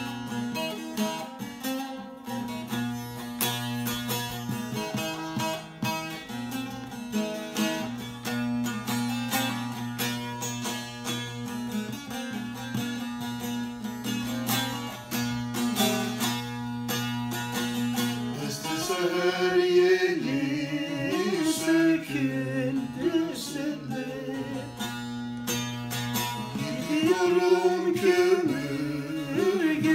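Bağlama (saz), the Turkish long-necked lute, played solo: a plucked melody over a steady low drone. After about nineteen seconds a man's voice joins, singing a folk song to the bağlama.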